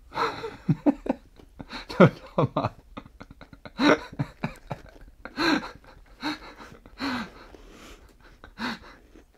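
Short wordless voice sounds and laughter, some of them falling in pitch, coming in brief bursts with quiet gaps between.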